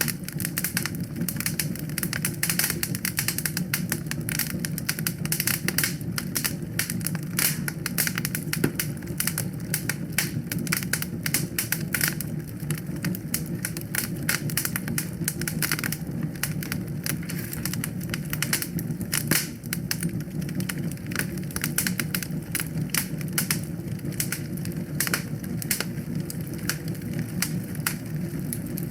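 Wood fire crackling, with dense irregular pops and snaps over a steady low rush of flame.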